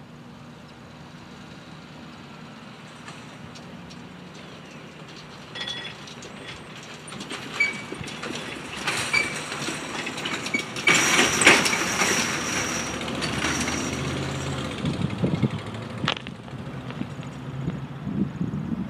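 Ford F-150 pickup truck driving past close by, its engine and tyre noise swelling as it approaches and loudest about eleven seconds in, then falling away.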